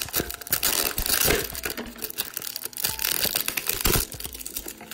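Plastic packaging crinkling and tearing: clear plastic wrap and a black foil bag being handled and pulled open, a dense run of crackles and rustles.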